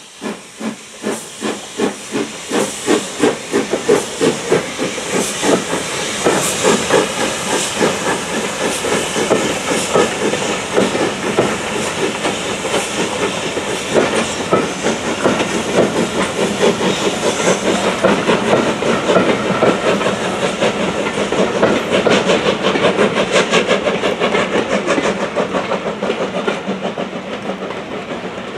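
S&DJR 7F 2-8-0 steam locomotive No. 53809 working a train past, its exhaust beats chuffing about two a second over a hiss of steam and growing louder over the first few seconds. The beats carry on as the coaches roll by.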